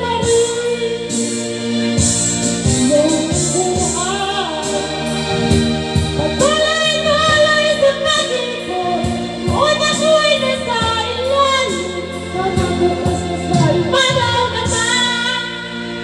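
A woman singing into a corded microphone over a music backing track, with long held notes that waver.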